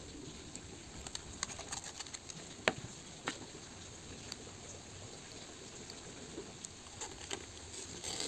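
Protective paper film being picked up with a craft knife and peeled off acrylic panels: scattered small clicks, scrapes and paper crackling, with one sharper tick a little over two and a half seconds in.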